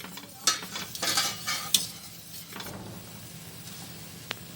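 A spoon stirring yogurt sauce in a cooking pot, scraping and knocking against the pot for about the first two seconds, then a steady hiss.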